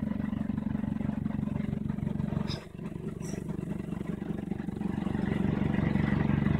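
An engine running with a steady pulsing throb. It drops off briefly about two and a half seconds in, then picks up again and gets louder towards the end.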